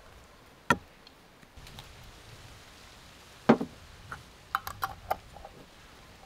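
Hard objects knocking and clicking: a sharp click under a second in, a louder knock about three and a half seconds in, then a quick run of light clicks a second later.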